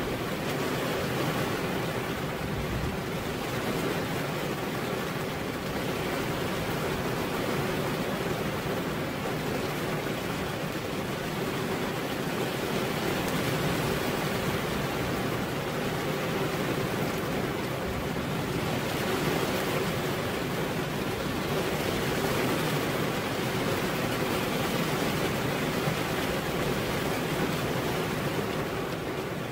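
Heavy rain pouring steadily onto a veranda roof, an even, unbroken rush.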